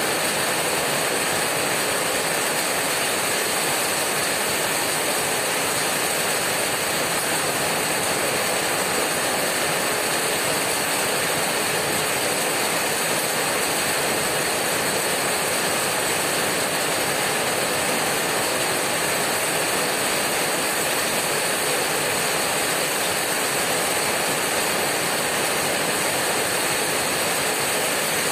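Heavy rain hammering on a corrugated tin roof: a dense, steady patter of drops on the metal sheeting.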